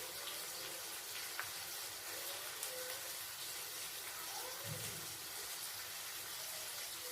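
A spoon stirring spice powders into curd in a bowl: a faint steady hiss with a few soft light clicks.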